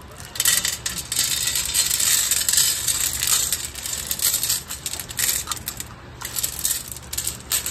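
Dry cat kibble poured from a plastic scoop onto a metal tray, a dense rattling patter of pellets hitting the metal. The steady pour thins out after about three seconds into a few shorter spills as the last kibble is shaken out.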